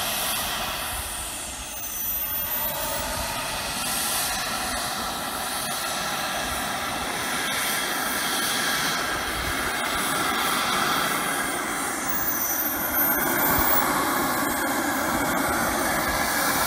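Turbine of a large scale model jet running at taxi power: a steady rushing hiss with a thin whine, growing gradually louder as the jet taxis closer.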